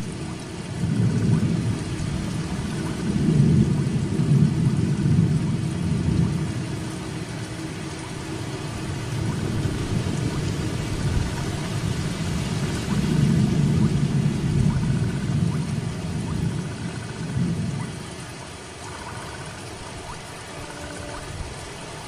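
Steady rain falling, with a low rumble that swells twice, each time for several seconds.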